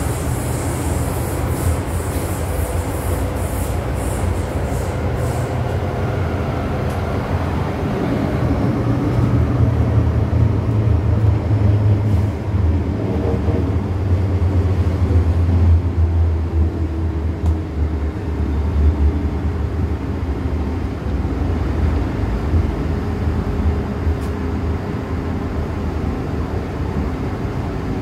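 An MTR M-Train metro train running through a tunnel, heard from inside the car: a steady low rumble with a constant motor hum, growing somewhat louder in the middle.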